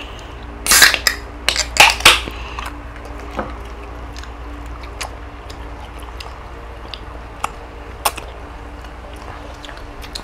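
People eating: chewing and small clicks of dishes and utensils, with two short loud bursts of noise about one and two seconds in, over a steady low hum.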